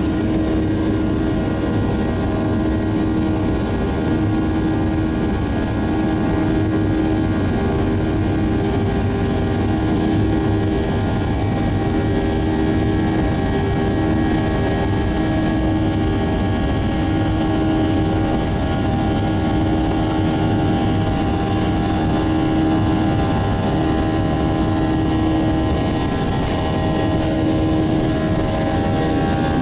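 Steady drone of an airliner's jet engines at low power, heard inside the passenger cabin while the plane rolls on the ground, with a constant hum over a rumble.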